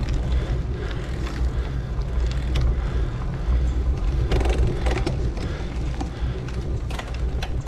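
Wind rumbling on the microphone of a camera on a moving bicycle, with tyre noise on pavement and scattered clicks and rattles from the bikes.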